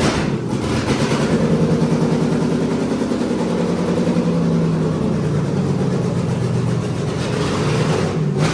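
6.0-litre LS V8 running loud on its first start, with no exhaust pipes fitted so it exhausts straight out of the open manifolds. The engine note holds steady, the revs easing down slightly over several seconds.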